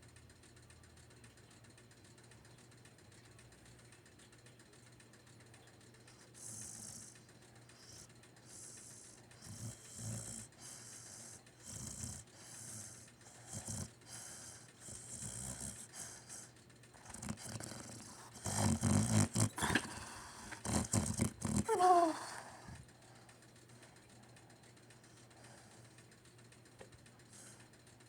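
A puppy snoring: rasping breaths come about once a second, growing louder and denser toward the middle, and end in a short falling squeak. It is faint for the first several seconds and again near the end.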